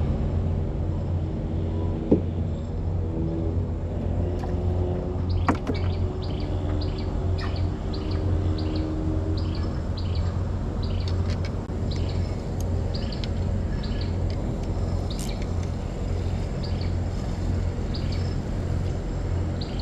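Small bird giving a long series of short, high chirps at about two a second, starting a few seconds in, over a steady low hum.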